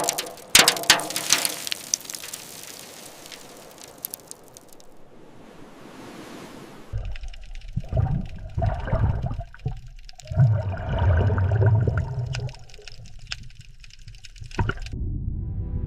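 Water sounds: crackling splashes and a steady rush for the first several seconds, then a run of heavy, low surges broken by short gaps.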